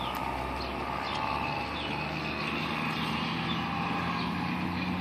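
A motor vehicle's engine running with a steady hum that firms up about two seconds in, while small birds chirp.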